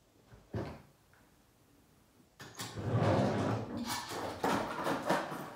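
Rummaging in an open desk drawer of small tools: a short knock about half a second in, then from about two and a half seconds a run of clattering and rattling.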